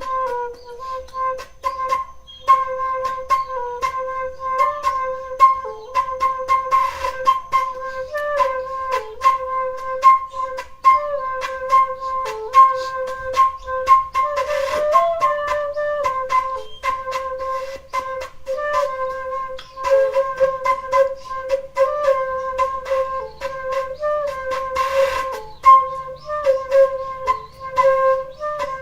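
Instrumental music: a flute-like melody line holding close to one pitch with small stepwise wavers, over a dense scatter of sharp clicks, with a faint low drone entering in the last third.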